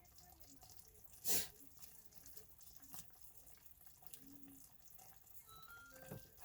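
Quiet kitchen sounds with one short, loud knock about a second in and a lighter tick at three seconds. Background music notes come in near the end.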